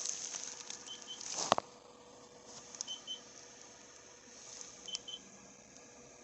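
Three short high double beeps, about two seconds apart, over a faint steady hum. The first second and a half also holds rustling handling noise and one sharp click, and a few lighter clicks fall near the later beeps.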